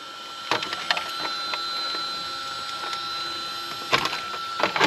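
Hard plastic clicks and knocks as the Arrma Outcast 4S's plastic body shell is worked loose and lifted off its chassis by hand. A few light clicks come about half a second to a second and a half in, and a louder clatter of knocks comes about four seconds in.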